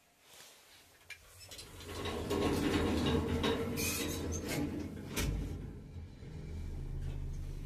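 Sliding doors of a Dźwig Service Łódź passenger lift rattling and clattering metallically as they close. About five seconds in, a steady low hum sets in as the lift starts moving down.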